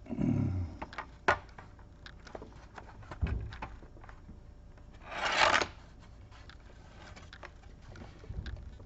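Plastic case of an HP 14 laptop being pried apart by hand: scattered clicks and rubbing as the case clips let go, with a longer scraping rasp about five seconds in.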